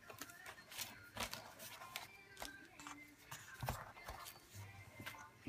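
Pages of a handmade spiral-bound paper journal being turned by hand: a run of quick paper rustles and flaps with light clicks.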